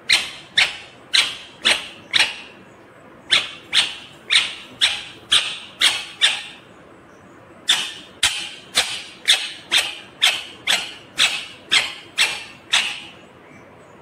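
Indian ringneck parakeet giving short, sharp, repeated calls about two a second, in three runs with brief pauses between them, the last run the longest.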